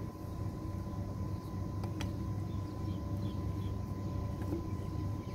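Steady low rumble of outdoor background noise, with a faint steady whine and one light click about two seconds in.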